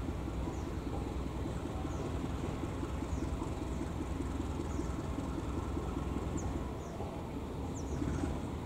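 Diesel-electric locomotive hauling a passenger train, its engine running steadily as the train approaches slowly.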